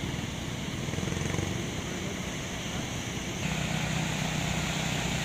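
Quad bike (ATV) engine running with a steady low drone, over a wash of beach noise; the sound shifts about three and a half seconds in.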